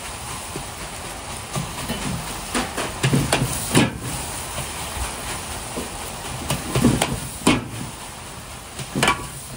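Metal ladle scraping and knocking against an iron wok as rice and egg are stir-fried, over steady sizzling. The sharp knocks come in small clusters, the loudest a little before four seconds in and again around seven and a half seconds.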